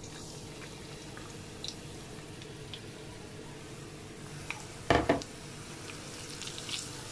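Grated beetroot frying in oil in a frying pan: a steady soft sizzle with a few light ticks, and one sharp knock about five seconds in as kitchenware strikes the pan.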